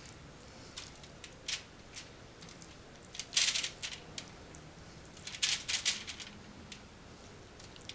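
Aluminium foil crinkling and crackling in short bursts as a silicone brush dabs a garlic and parsley mixture over a trout fillet lying on it. There are two louder flurries, about three and a half seconds in and between five and six seconds, with light ticks in between.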